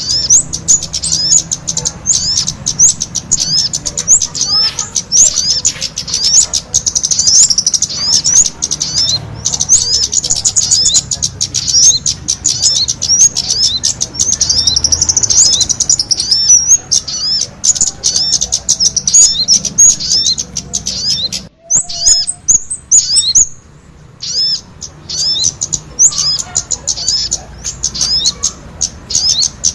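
Bird-lure recording of sogon calls mixed with kemade calls: a dense, fast stream of short, high, sweeping chirps. It breaks off briefly about two-thirds of the way in, then resumes more sparsely.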